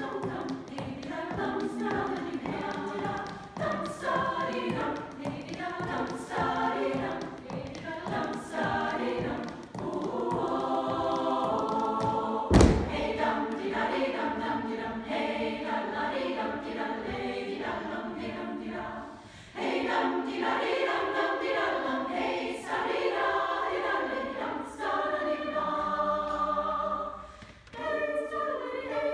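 Women's choir singing a cappella in turlutte style, the Acadian and Québécois mouth music of quick rhythmic nonsense syllables. A single loud thump comes about halfway through.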